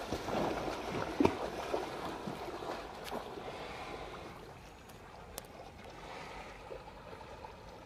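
Water sloshing and splashing as a bullock and men wade and swim through a river, louder at first and fading as they move off, with a few brief splashes, the sharpest about a second in.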